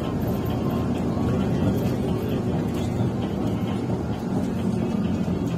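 Steady engine and road noise inside the cab of a moving coach.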